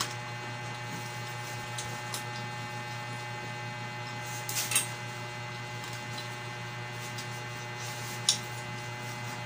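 Steady electrical mains hum, with a few light taps and clinks from handling food and tableware at the table. The loudest taps come about four and a half seconds in and again just past eight seconds.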